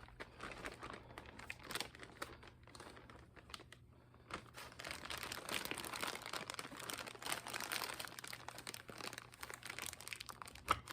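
Plastic bag and plastic wrap crinkling and rustling as they are handled, with dense irregular crackles that pick up from a little under halfway through.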